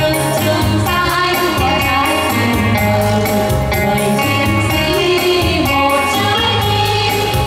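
Three women singing together in Vietnamese into microphones, with instrumental accompaniment that has a steady beat.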